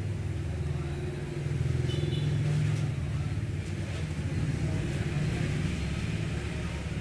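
Steady low engine rumble, swelling a little about two seconds in, with faint light ticks and short high tones over it.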